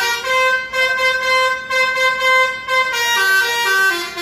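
Bus 'telolet' horn, a multi-tone musical air horn, playing a tune of quick changing notes in short phrases with brief breaks between them.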